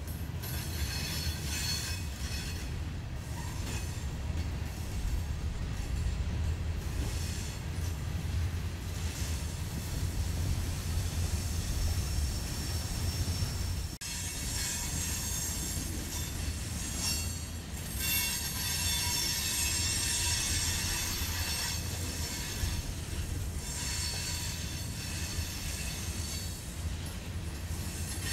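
Empty rock hopper cars of a Union Pacific freight train rolling past, their steel wheels rumbling steadily on the rails, with a high steady wheel squeal. The sound dips briefly about halfway through, and the squeal is stronger afterward.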